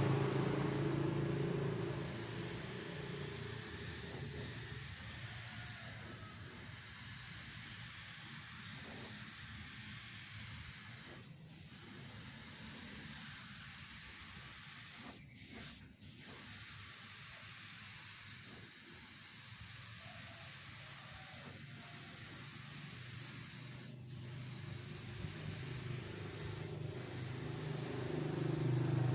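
Air spray gun hissing steadily as it sprays melamine lacquer, broken a few times by short gaps where the trigger is let off. An air compressor's motor hums at the start, drops out after a couple of seconds, and starts up again near the end.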